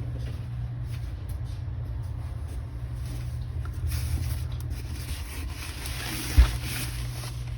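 Faint rustling of a diamond painting kit's packaging being handled, over a steady low hum, with a single dull thump about six seconds in.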